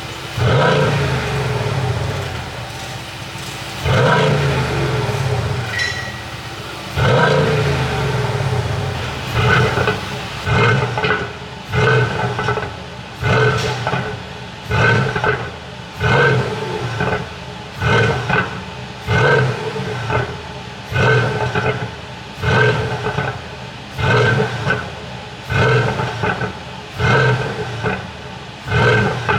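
Mercedes-AMG GLC63's twin-turbo V8 free-revving with the car standing still. A few longer revs come first, then short throttle blips about every second and a half. Each blip is followed by crackling pops from the exhaust on the overrun, the sign of a pop-and-bang tune.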